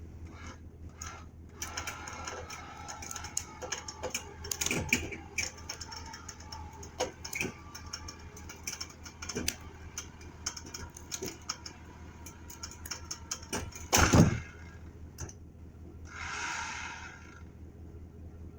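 Steel winch cable and chain being handled and run out to a log: irregular metallic clicks and clanks over a steady low hum, with one loud knock about fourteen seconds in.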